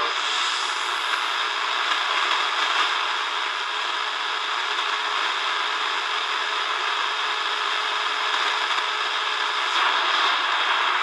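Shortwave static hissing from a Tecsun DR-910 portable radio's small speaker as the analog dial is tuned slowly upward between stations.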